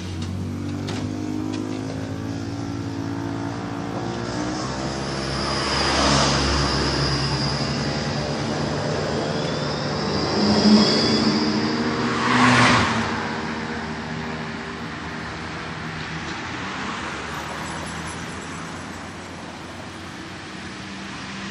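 City tram running, heard from inside the car: electric traction motors whine at a slowly changing pitch over the steady rumble of wheels on rails. A thin high tone holds for several seconds in the middle, and two louder swells of noise come about six and twelve seconds in.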